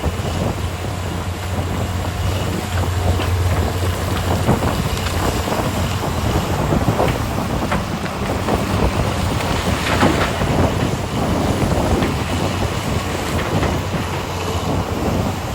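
Large diesel mining machinery, an excavator and haul trucks, running with a steady low hum. Wind buffets the microphone throughout.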